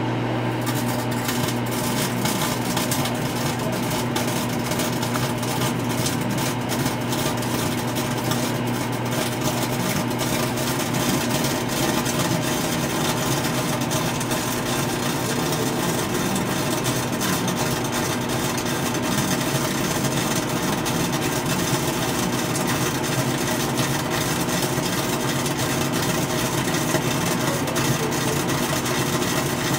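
GoldStar microwave oven running with broken flood lamp bulbs inside turned to glowing plasma: a steady dense crackling buzz from the arcing plasma over the oven's low hum. The crackle comes in about half a second in.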